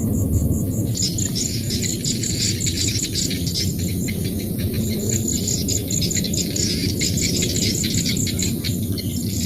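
Field insects chirping, a high steady pulse at about five chirps a second, with a denser chorus of insect chirps joining about a second in, over a steady low rumble.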